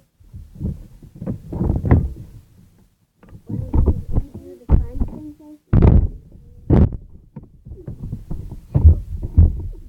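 Slime being squeezed and worked by hand close to the microphone: irregular muffled squelches and thumps.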